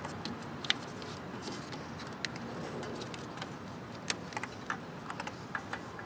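Scattered small clicks and ticks of hands wrapping vinyl electrical tape around a spliced wiring harness, the sharpest click about four seconds in, over a steady faint hiss.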